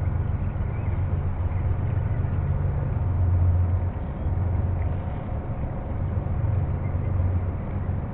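Wind buffeting the microphone, making a steady, uneven low rumble.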